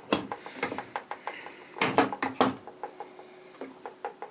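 Parts of a Makita mitre saw's tilt pivot being handled and fitted back together: an irregular series of small metallic clicks and knocks, the loudest about two seconds in.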